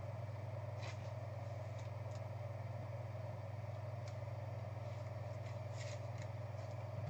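Steady low electrical hum, with a few faint light clicks and rustles of a trading card and a clear plastic card case being handled.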